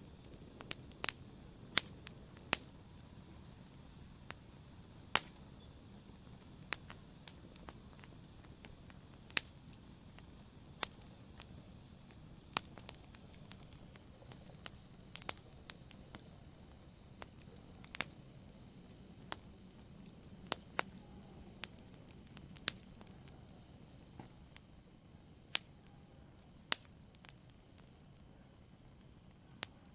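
Wood logs burning in a fireplace: irregular sharp crackles and pops, one every second or so, over a low steady hiss of the fire.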